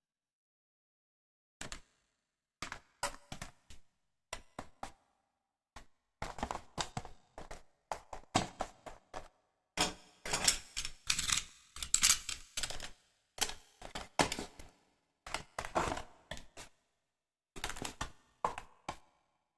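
Small metal spring toy pistol being handled: a run of sharp clicks and clatter, a few separate clicks at first, then dense bunches around the middle before thinning out again.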